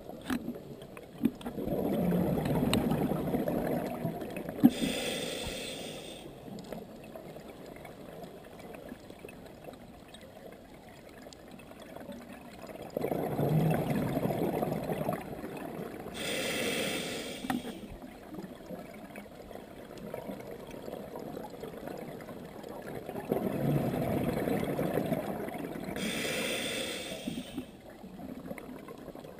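Scuba diver breathing through a regulator underwater: three breaths about ten seconds apart, each a burst of bubbling exhaled air followed by a short hissing inhalation through the regulator.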